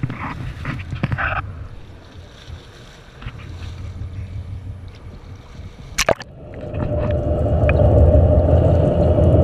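Water sloshing and splashing against a boat's hull at the surface, with a sharp knock about six seconds in as the camera goes under. After that comes a steady, muffled low rumble with a constant hum, heard underwater and growing louder.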